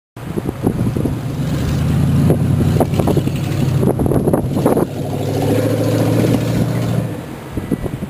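Traffic on a snow-covered road: the engines of passing cars and pickup trucks make a steady hum that fades about seven seconds in, with gusts of wind buffeting the microphone.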